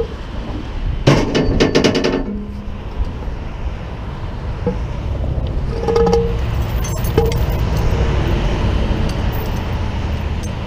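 A quick run of sharp clinks and rattles about a second in, then a few single clinks near six and seven seconds, over a steady low rumble of vehicles.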